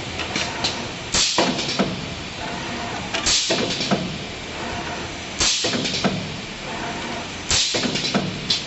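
Automatic spider-strainer star-frame making machine cycling through its wire-frame strokes: four sudden clattering, hissing bursts, about two seconds apart, over a steady background noise.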